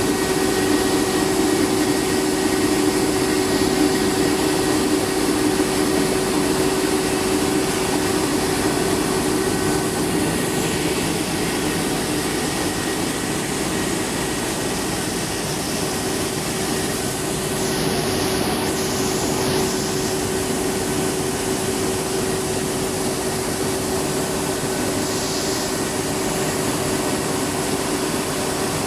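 Rice milling plant machinery running steadily, a continuous whirring noise with a constant low hum and a few brief hisses.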